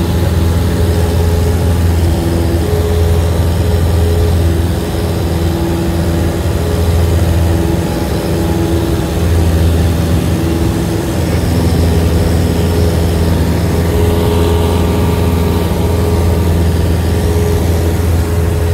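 Piston engine and propeller of a single-engine light plane in flight, heard inside the cabin: a loud, steady drone with a deep hum, its pitch shifting slightly now and then.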